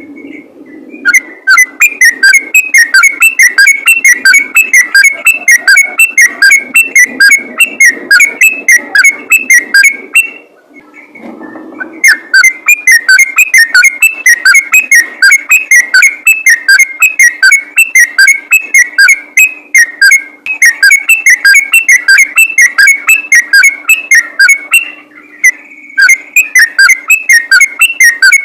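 Sooty-headed bulbul singing a fast, rapid-fire run of whistled notes, about five a second, loud and clipped, breaking off briefly twice.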